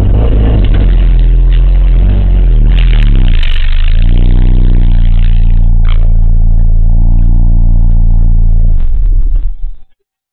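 Car in motion recorded in the cabin: loud engine and road rumble with clattering, a shift in engine pitch about three to four seconds in, and a sharp knock about six seconds in. This is the abnormal noise from newly fitted coilover suspension. The sound cuts off abruptly near the end.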